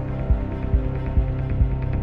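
Dark cinematic sound-effect music: a sustained low droning chord over a heavy low pulse a little over twice a second, like a heartbeat. Short, sharp ticks come in faintly near the end.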